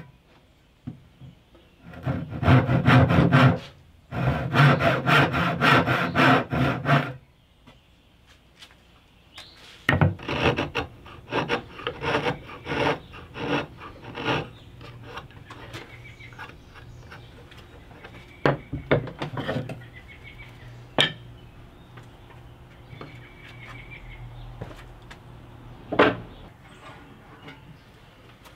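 Hand back saw cutting a wooden block with quick, rasping strokes in two loud bursts, a further quieter run of strokes after about ten seconds, then light clatter and two sharp knocks of tools on a wooden bench.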